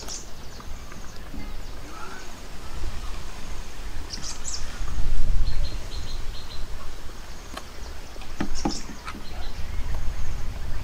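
Outdoor rural ambience: small birds chirping now and then over a low rumble that swells about halfway through and again near the end, with a few light clicks.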